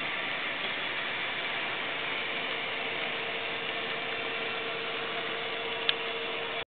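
Model railroad train rolling past on the layout track: a steady mechanical clatter of wheels and gearing, with a steady hum joining about a third of the way in and a single sharp click near the end. The sound cuts off suddenly at the very end.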